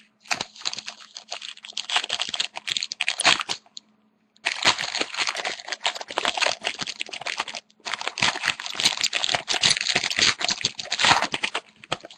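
Foil wrapper of a hockey card pack being torn open and crinkled, in three stretches of dense crackling broken by short pauses about 4 and 7.5 seconds in.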